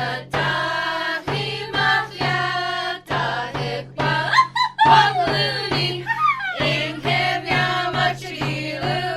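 A song: voices singing over musical accompaniment, with a steady low note pulsing underneath.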